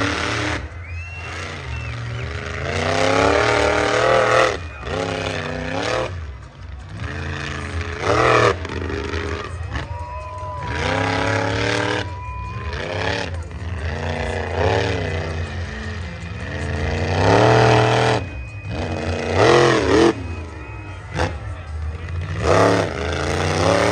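Monster truck engine revving up and down again and again as the truck drives the dirt track, over a steady low rumble.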